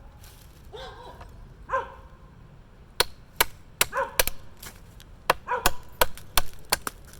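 A small tomahawk chopping into wooden branches: about a dozen sharp strikes in quick succession, two or three a second, starting about three seconds in. Dogs bark a few times in the first two seconds and again between the strikes.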